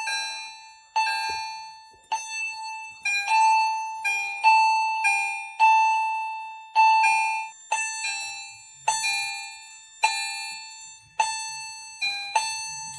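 Edwards fire alarm chimes sounding in alarm: repeated two-note ding-dong strikes, about one a second, each ringing and fading before the next. The chimes stop near the end.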